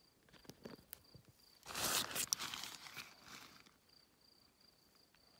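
Footsteps crunching and scuffing on loose rocky gravel: a few light steps, then a louder scrape lasting about two seconds. A faint high insect trill continues in the background.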